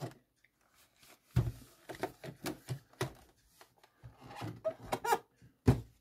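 Plastic body of a Xiaomi robot vacuum knocking and clicking on a wooden tabletop as it is handled and turned upside down: a string of separate knocks, some with a dull thump.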